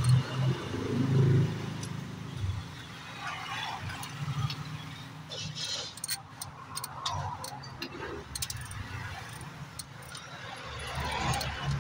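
Metal hand tools clinking and rattling against bolts and metal parts around a turbocharger, with a run of sharp clicks in the middle. A low rumble runs underneath, loudest in the first second or so.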